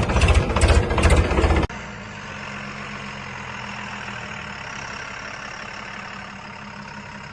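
Heavy diesel engine running with a loud, rapid clatter, then an abrupt cut about a second and a half in to a quieter, steady diesel engine hum.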